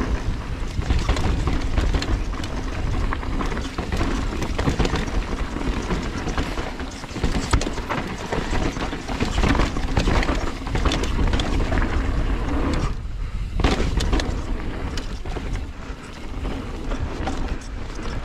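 Mountain bike descending a rough trail: wind buffeting the camera's microphone over the tyres on dirt and rock, with frequent clattering knocks from the bike's parts. It eases briefly about thirteen seconds in.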